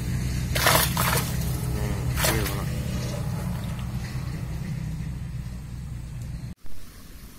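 Water splashing briefly twice, about a second in and again just after two seconds in, as fish thrash in a keep net hanging in the water, over a steady low rumble that cuts off suddenly near the end.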